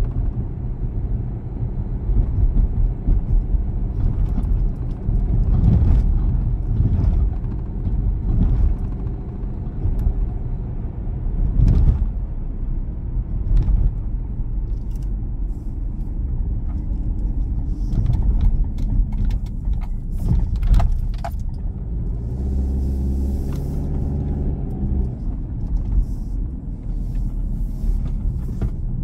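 Car driving on city streets: a steady low rumble of road and engine noise, with scattered light clicks and a pitched engine drone that stands out for a few seconds near the end.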